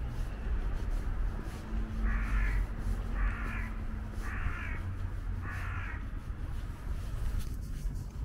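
A bird giving four harsh calls about a second apart, over a steady low rumble.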